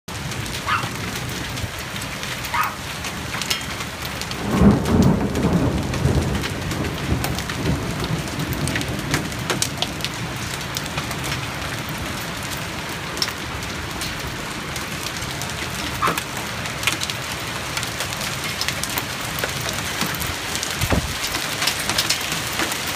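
A hailstorm with heavy rain pouring steadily onto pavement, lawn and parked cars, and scattered sharp ticks of hailstones striking. A loud low rumble of thunder comes about four and a half seconds in, and a fainter one near the end.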